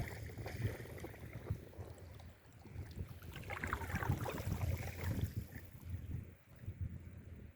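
Sea water washing at the shore with wind buffeting the microphone, in a low, uneven rumble; a brief wavering higher sound rises over it about halfway through.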